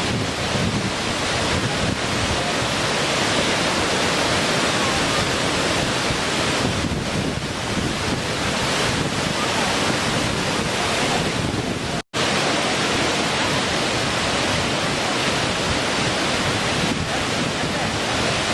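Small waterfall: a steady rush of falling and splashing water. The sound cuts out for an instant about twelve seconds in.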